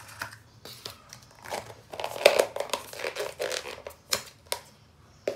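Thin clear plastic food container and lid crinkling and clicking as they are handled, densest and loudest about two seconds in, with a few sharp clicks near the end.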